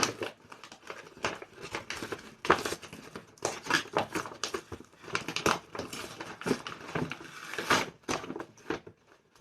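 Packaging crinkling and rustling in quick, irregular handfuls as a parcel is opened and its contents unwrapped, with a little tearing.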